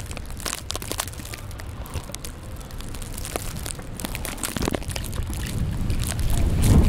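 Snowstorm wind rumbling on a compact camera's built-in microphone, swelling near the end, with scattered crackling, crunching clicks throughout.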